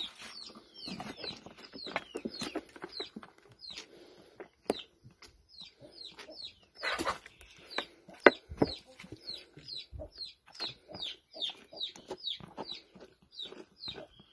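Chickens peeping: short, high calls falling in pitch, about three a second, with a few sharp knocks in between.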